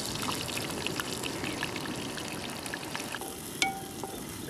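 Chopped onions frying in hot oil in a clay pot, a steady sizzle with small crackles. From about three seconds in, a few sharp clicks ring out as a spatula stirs against the clay pot.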